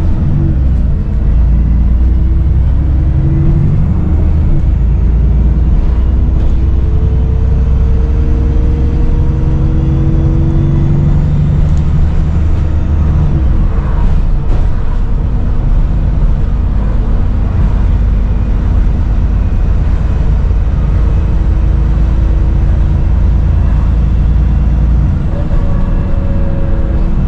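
Diesel engine of a Dennis Trident 2 / Enviro 400 double-decker bus running under load, a heavy steady rumble whose note rises and drops several times, with a slight turbo whistle.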